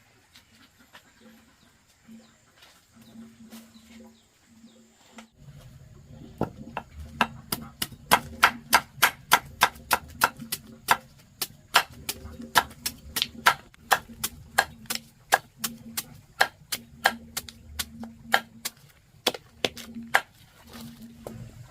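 Repeated sharp knocks, about two to three a second and slightly irregular, starting about six seconds in, over a low steady hum.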